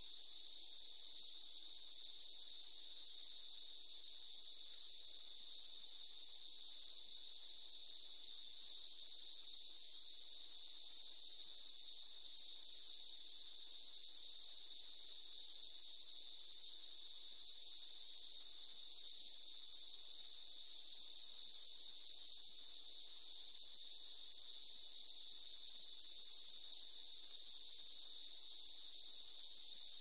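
Daytime insect chorus: a dense, steady, high-pitched drone of many insects that never breaks or changes.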